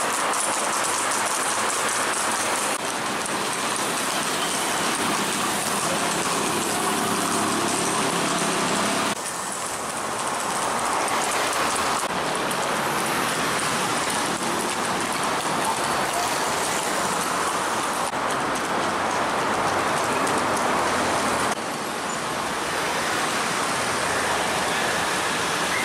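Dense, continuous clatter of many horses' hooves on a paved street. The sound changes abruptly in level a few times.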